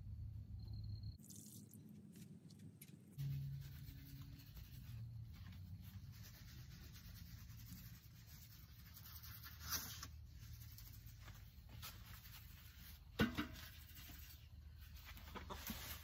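Faint rustling and a few light knocks as garden supplies are handled, the sharpest about 13 seconds in; near the end, granules rattle as a plastic jug of Preen weed preventer is shaken out.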